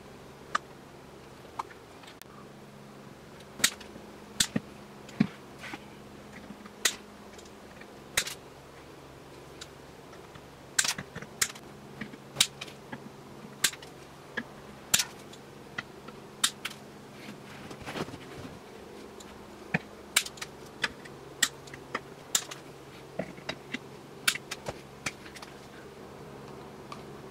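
Irregular sharp clicks and snaps, about thirty of them, as a plastic-welding hot stapler sets metal wire staples into the seam between a plastic container and a PVC pipe. A low steady hum sounds under the clicks, dropping out for a few seconds past the middle.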